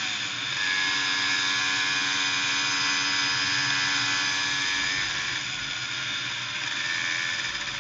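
Lambretta Lui scooter's small two-stroke engine under way: the revs drop as the throttle eases right at the start, then it holds a steady buzzing note at road speed.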